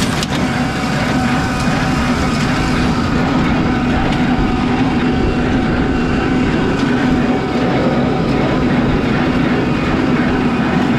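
John Deere small square baler running, driven by the tractor, its mechanism rattling over the tractor engine's steady drone.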